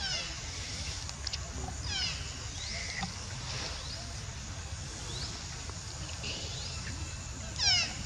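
Macaque calls: three short, high-pitched squeals, one at the start, one about two seconds in and a louder one near the end, over a steady low rumble.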